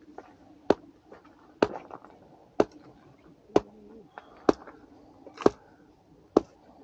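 A wooden mallet striking a wooden stake, driving it into the ground to hold a laid hedge: seven sharp knocks, about one a second, at a steady pace.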